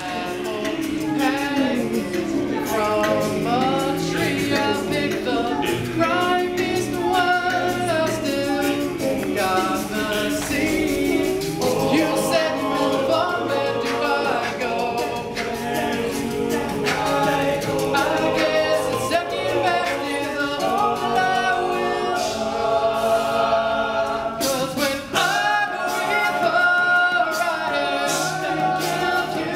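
A men's a cappella group singing a song live in close vocal harmony, with several sustained voice parts over a low bass line.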